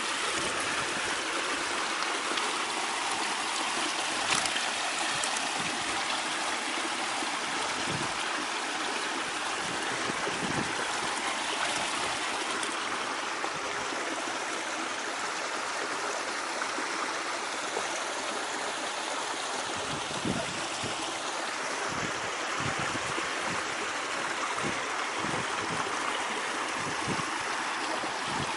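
Small waterfall running: a steady, unbroken rush of falling and splashing water, with a few soft low gurgles in the second half.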